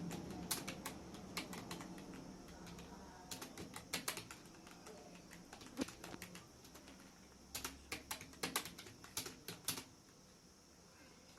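Computer keyboard being typed on in short bursts of quick keystrokes, with pauses of a second or two between bursts.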